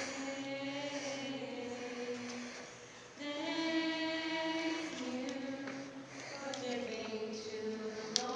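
A small group of people singing a slow Christian song of thanks together, holding long notes, with a brief break between lines about three seconds in.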